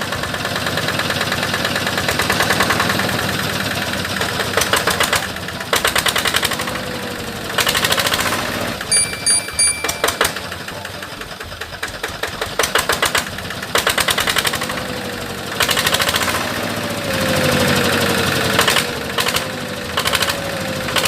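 Small motor of a cleaning tool running with a rapid buzzing rattle, coming and going in bursts of a few seconds, while a dirty toy tractor is cleaned.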